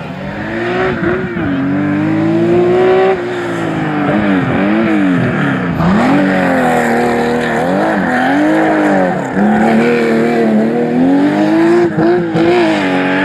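Rally car engine revving hard and loud, its pitch climbing and dropping several times in quick succession as the throttle is lifted and reapplied, then holding high near the end.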